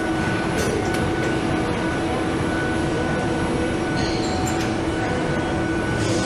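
Steady running noise of an automated stator-assembly machine working on an electric motor's copper windings: a continuous mechanical hum with a few sharp clicks about half a second and a second in, and a short hiss about four seconds in.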